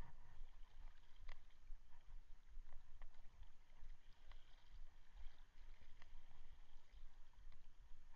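Low wind rumble on the microphone over open water, with a few faint irregular clicks from a spinning reel being cranked while a hooked fish pulls the rod.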